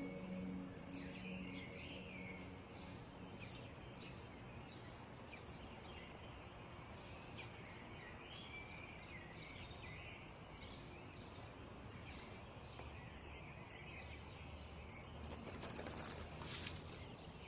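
Garden ambience: small birds chirping and twittering over a steady faint hiss. A short rustling burst sounds near the end.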